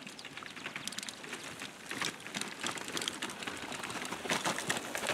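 Mountain bikes coasting down a grassy slope toward the camera: an irregular patter of clicks and rattles from tyres and bikes over grass and stones, growing louder as they approach.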